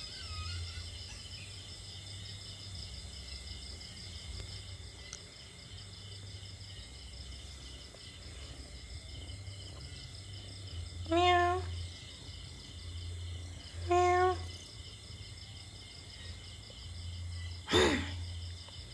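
A kitten mewing three times, short high calls about three seconds apart, the last the loudest near the end. Under them runs a steady chorus of insects trilling.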